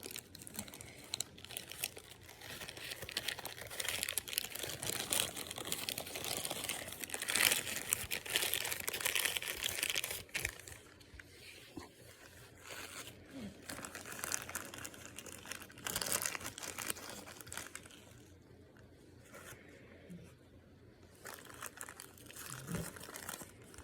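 Plastic packaging crinkling as it is handled. The crinkling is dense through the first ten seconds, loudest around eight seconds in, then turns sparser and quieter.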